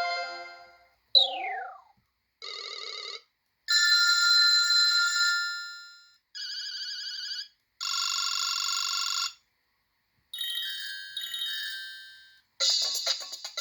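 BlackBerry 7100i's built-in alert tones previewed one after another through its speaker: about seven short electronic beeps and chimes, each a second or two long with a silent gap between, one of them a quick falling sweep. Near the end a rhythmic ringtone tune starts.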